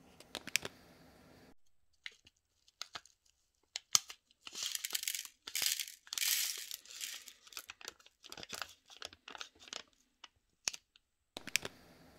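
Small plastic seasoning sachet crinkling and rustling as it is handled and shaken. Dry sesame seeds and nori flakes tick lightly as they land on a plate. The crinkling is loudest around the middle.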